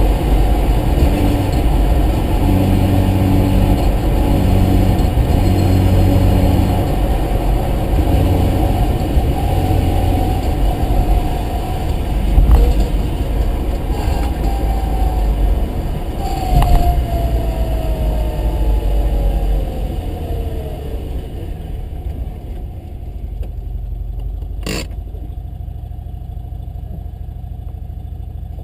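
Mazda RX-7 with its rotary engine running under way, loud and steady, with a whine that falls in pitch as the car slows; it settles to a much quieter steady idle after about 22 seconds. Two knocks come in the middle, and a single sharp click near the end.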